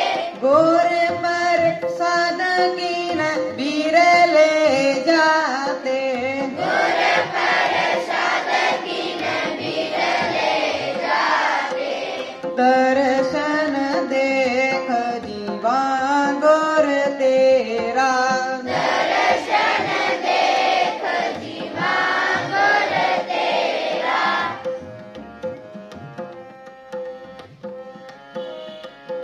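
Children singing a Sikh devotional hymn (shabad kirtan) together, accompanied by harmonium and tabla. About 24 seconds in the singing stops and the harmonium and tabla carry on more quietly.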